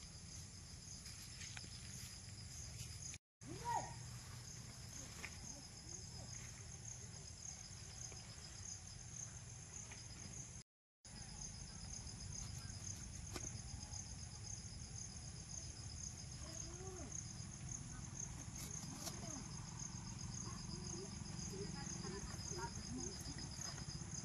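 Steady chorus of insects chirring in several high shrill pitches, over a low steady rumble. The sound cuts out briefly twice.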